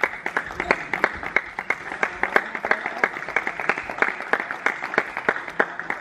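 Irregular clicks of table tennis balls bouncing on tables and being struck by bats, several a second, echoing in a sports hall.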